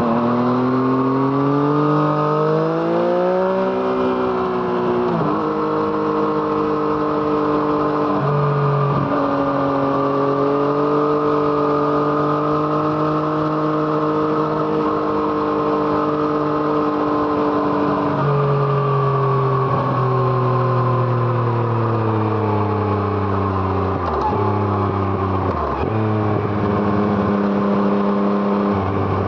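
Yamaha MT-09's three-cylinder engine through an Arrow Thunder exhaust under riding load. The pitch rises as it accelerates, drops in steps at upshifts a few seconds in, then holds steady at cruising speed. Later it falls as the bike slows, with two brief breaks near the end that sound like downshifts.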